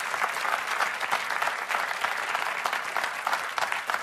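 Large seated audience applauding: many hands clapping in a dense, steady patter.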